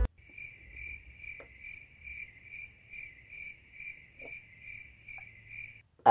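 Cricket chirping sound effect: a steady run of evenly spaced chirps, a little over two a second, stopping shortly before the end. It serves as the 'crickets' gag for an awkward silence.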